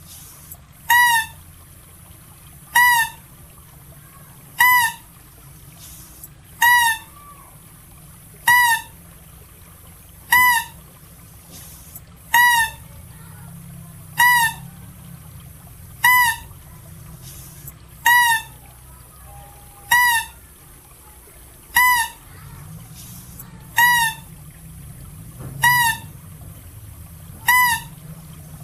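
Calls presented as those of the Philippine mouse deer (Balabac chevrotain): a short, high call that rises and falls slightly, repeated at an even pace about once every two seconds.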